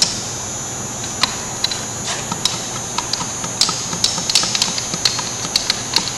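Wooden ramrod packing paper wadding down a small homemade cannon's steel barrel: irregular light clicks and taps, over a steady electrical hum.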